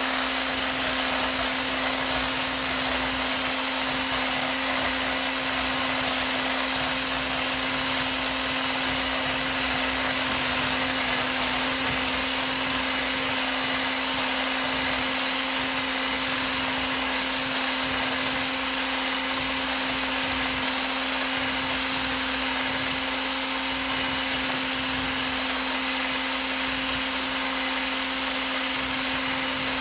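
Handheld electric milk frother running steadily with its coil whisk spinning in a stainless steel bowl of liquid lotion mixture, a constant whirring hum, whipping the mixture to thicken it.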